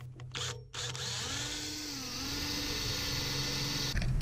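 Cordless drill spinning a small pilot bit through a boat's fiberglass deck, running steadily for about three seconds before stopping. Its motor whine dips in pitch partway through.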